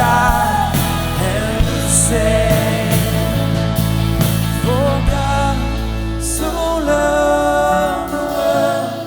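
Worship song: a singer's melody over a band with sustained bass and occasional cymbal strokes, fading down near the end.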